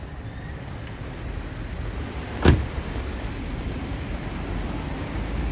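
A car door, the Skoda Fabia's, shut once with a single solid thud about halfway through. Steady low street-traffic rumble underneath.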